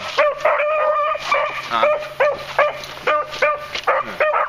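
Beagles baying in short, repeated yelps, about two to three a second, with the voices of more than one hound overlapping. This is the cry that hounds give while running a rabbit's scent trail.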